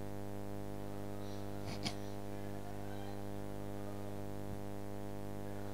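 Steady electrical hum: a buzzing stack of unchanging tones from the recording's sound system, with a tiny click about two seconds in.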